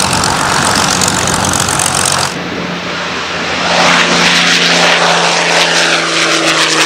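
Twin Rolls-Royce Merlin V12 engines of a de Havilland Mosquito running loud and steady, first on the runway, then after a cut about two seconds in, airborne and flying past. Near the end the engine note drops slightly in pitch as the plane passes.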